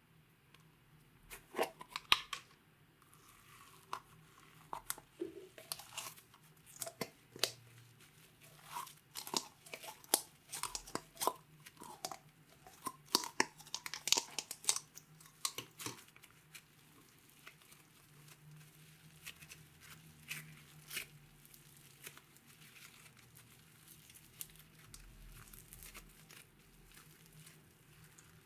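Thick green slime being pulled out of a plastic tub by hand, giving a run of sticky clicks and crackling pops for about fifteen seconds. It then turns to softer squishing as the slime is pressed down.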